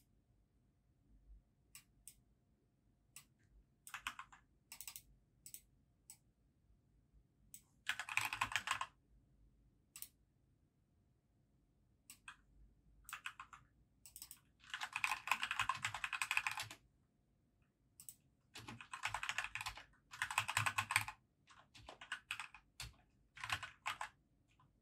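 Typing on a compact computer keyboard: single keystrokes and short clusters with pauses between, broken by several runs of rapid typing lasting one to two seconds each.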